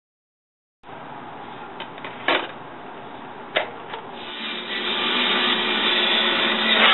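Clicks of a CD being handled and loaded into a laptop's disc tray: two sharp clicks about a second and a half apart among smaller ticks, then a steady noise that builds up from about four seconds in.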